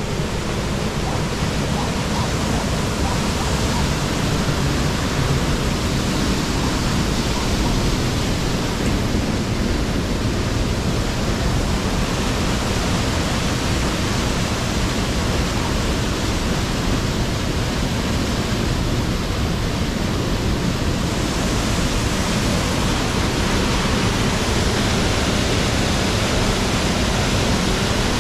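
Water rushing steadily through a small sluice weir and churning into a stone basin below, a loud continuous rush with no breaks. The hiss turns brighter in the last few seconds.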